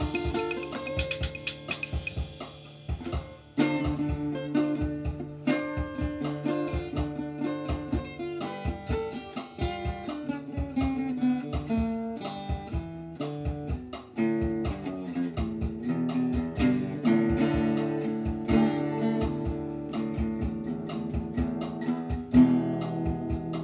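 Guitar music: a guitar played with a run of plucked notes and strummed chords, each note ringing briefly.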